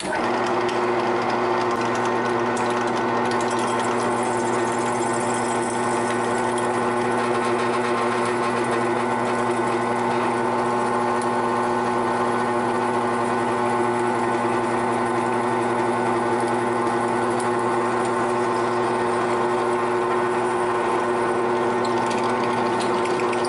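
Benchtop drill press switched on at the start and running with a steady motor hum while its twist bit drills pin holes through a wooden handle block.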